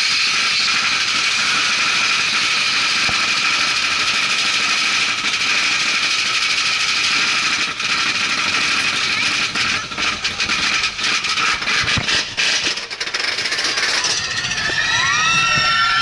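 Mine-train roller coaster hauled up its lift hill: a steady mechanical clatter, then a quick run of sharp clicks near the crest. About two seconds from the end riders start screaming as the train tips over the top.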